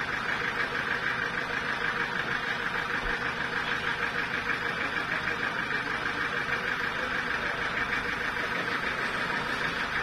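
Band sawmill running steadily at idle, the machinery turning over without cutting.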